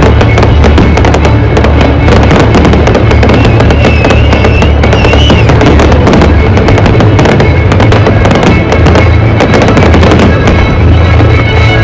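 Fireworks bursting in quick succession, a dense run of sharp bangs and crackles with music playing underneath. A brief wavering whistle sounds about four seconds in.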